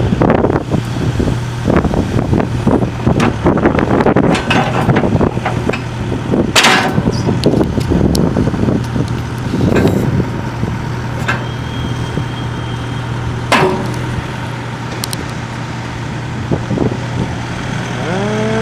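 Link-Belt 130X3 excavator's diesel engine running with a steady low hum, under irregular metallic clanks and knocks that come throughout.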